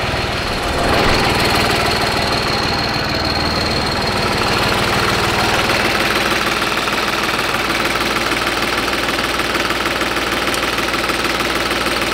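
New Holland tractor's diesel engine idling steadily, heard up close at the open engine side. It grows a little louder about a second in and then runs evenly.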